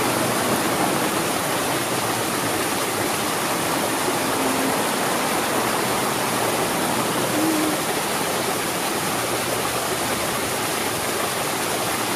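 Small rock-garden waterfall: water splashing steadily down over stones.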